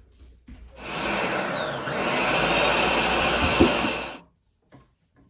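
Ninja Professional countertop blender running for about three seconds as it blends a green smoothie. Its whine drops in pitch, then holds steady, with a short knock near the end before the motor cuts off abruptly.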